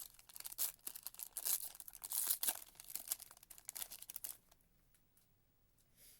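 A Panini Prizm foil card pack being torn open and its wrapper crinkled by hand: a run of irregular crackles and rips that stops about four and a half seconds in.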